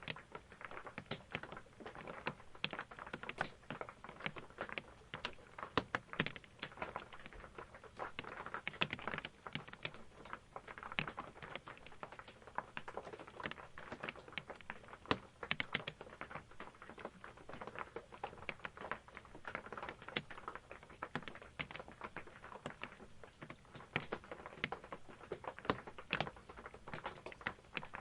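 Rain drumming on the roof of an RV, heard from inside: a dense, uneven patter of drops and taps with no letup.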